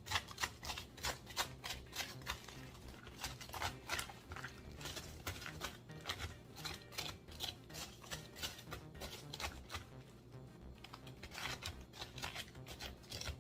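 Repeated scraping and cutting strokes inside a raw cabbage as its hollow is carved out and smoothed, several crisp strokes a second with irregular spacing.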